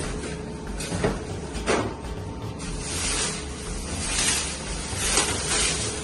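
Cardboard packaging being pulled away from a new refrigerator and its plastic wrap being lifted off: two sharp knocks about a second in, then rustling and scraping.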